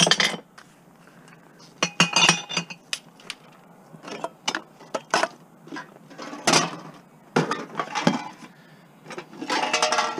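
Empty glass bottles and drink cans clinking and clattering as they are dropped one after another into sorting bins and a bucket: a string of separate clinks about a second apart, a few with a brief glassy ring.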